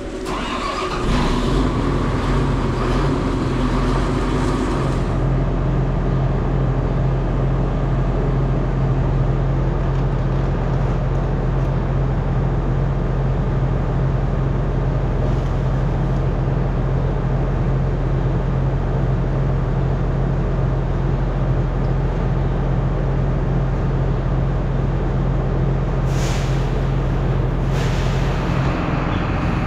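Tractor engine running at a steady speed, with a constant low hum. Two short hisses come near the end.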